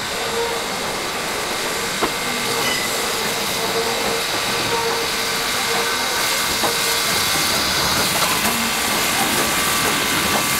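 Steam locomotive running light, with a steady hiss of steam and occasional clicks of wheels over rail joints, slowly growing louder.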